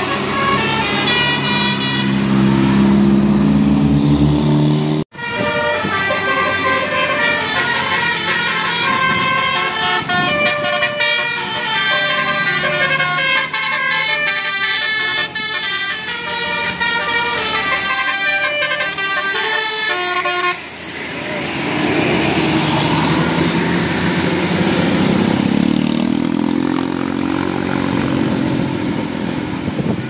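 Tour-bus telolet multi-tone horns playing quick melodic tunes of short stepped notes, over a bus's deep engine. The sound cuts abruptly twice; in the last third a bus engine runs with its pitch gliding up and down.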